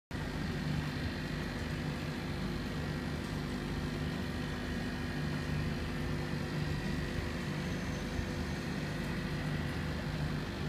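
Aquarium pump and aeration running: a steady mechanical hum with several constant tones over an even hiss.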